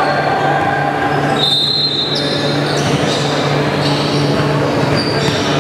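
Steady background noise of an indoor basketball court: a constant low hum under even hall noise, with short high squeaks about one and a half seconds in and again near the end.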